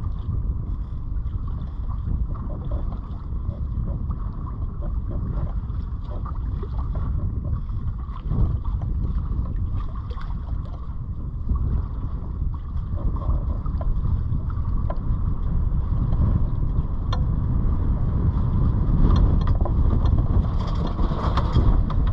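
Steady low rumble of wind buffeting the microphone aboard a sailboat under sail, with a few faint clicks here and there.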